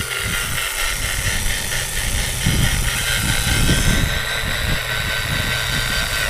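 Electric chainsaw motor running steadily at speed, with irregular low rumbling as it is worked into the brush.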